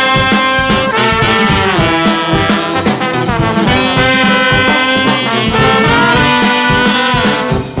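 Background instrumental music: held melodic notes over a steady drum beat.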